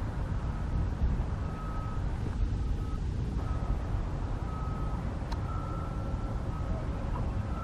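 Backup alarm on a piece of construction equipment, beeping about once a second over a steady low rumble.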